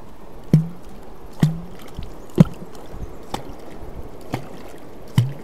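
A wooden catfish clonk driven down into the water, making six short popping clonks about a second apart, each with a brief low tone; the third is the loudest and two in the middle are weaker. The clonk is the call used to draw wels catfish up to the bait.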